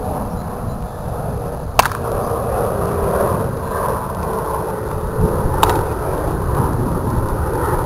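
Baseball bat striking a pitched ball twice, two sharp cracks about four seconds apart, over a steady low rumble.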